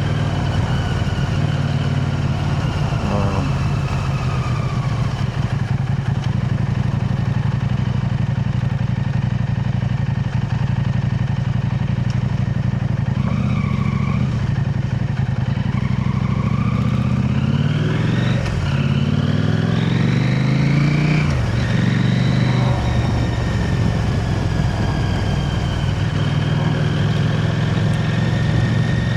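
KTM 890 Adventure R's parallel-twin engine through an Arrow Race-Tech slip-on exhaust, running steadily at road speed. About halfway through the rider accelerates: the note rises, drops at a gear change, rises again, then settles back to a steady cruise.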